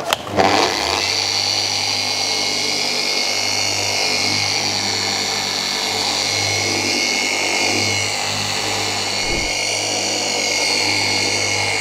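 A 15 mm-orbit dual-action polisher switches on just after the start and runs steadily, its foam polishing pad with cutting compound working against a car door's paint. Its pitch shifts slightly now and then.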